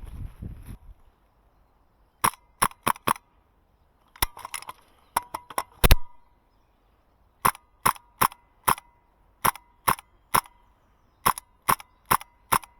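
HPA-powered MK12 airsoft DMR firing semi-automatic shots, about twenty sharp cracks in quick strings of two to four, one shot about six seconds in louder than the rest.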